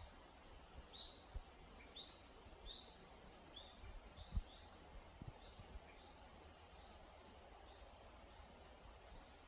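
Small birds giving short, high chirps, frequent for the first six seconds and then sparse, over a faint outdoor hiss with a few low thumps of wind on the microphone.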